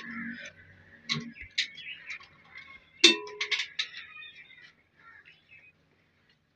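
Scattered clinks and knocks from an oil can and a plastic oil bottle being handled while oil is topped up on an old stationary diesel engine that is not running, the loudest knock about three seconds in. Faint bird chirps come in between.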